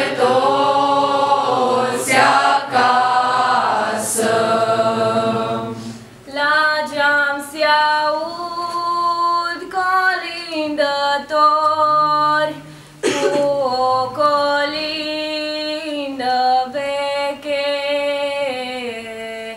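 Young voices singing a Romanian Christmas carol (colind) unaccompanied. About six seconds in, the full group gives way to fewer, clearer voices led by girls, holding long sung notes with short breaks between phrases.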